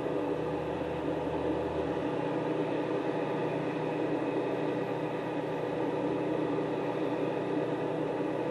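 Steady machine hum at a constant pitch, with a faint deeper hum underneath that stops about two seconds in.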